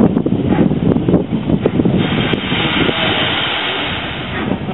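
Robert Stephenson and Hawthorns 0-6-0 steam locomotive in steam, hissing and roaring with an irregular rumble underneath; the hiss grows stronger about two seconds in.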